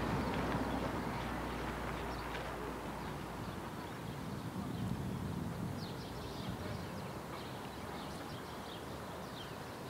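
Outdoor ambience: a steady wash of noise with a low rumble that fades out over the first three seconds, then scattered short, high ticks or chirps from about six seconds in.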